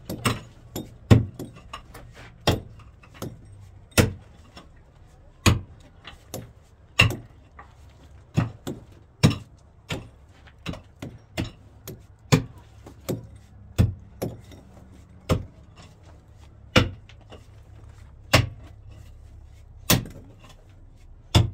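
Sharp knocks repeating irregularly, roughly one to two a second, some much louder than others, over a low steady hum.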